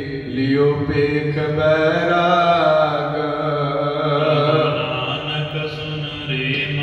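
Sikh Gurbani chanting: a single voice sings a slow, drawn-out melodic line over a steady low drone.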